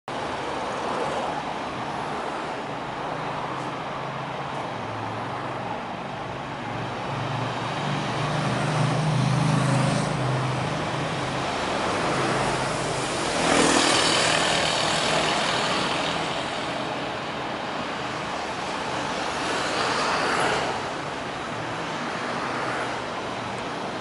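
Busy city road traffic: the engines of cars, vans and trucks running in a steady mix, with a deep engine hum in the first half. The traffic swells louder a little past halfway and again near the end.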